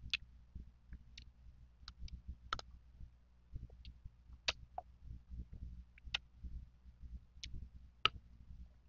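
Close-miked chewing of mango slices: irregular wet mouth clicks and smacks, over a soft low rumble.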